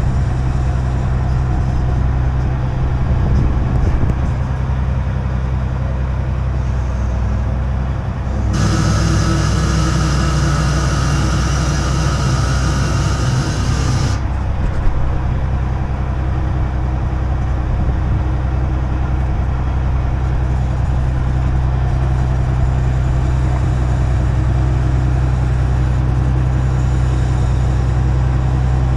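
A crane's diesel engine running steadily with a deep drone, heard from inside the operator's cab. About a third of the way in, a loud rushing hiss with a faint whine joins it for about five seconds and then cuts off.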